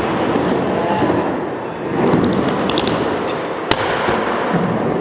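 Skateboard wheels rolling on a skatepark ramp, with one sharp clack about three-quarters of the way through.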